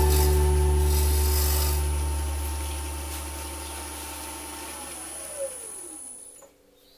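Axminster AT1628VS variable-speed wood lathe running with a steady motor hum and whine that slowly grows quieter. About five seconds in, its pitch falls as the lathe winds down, leaving near quiet at the end.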